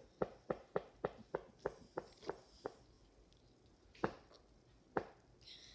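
A child gulping soda from a can, about ten quick swallows at a steady three to four a second that stop a little under three seconds in. Two louder single clicks follow about four and five seconds in.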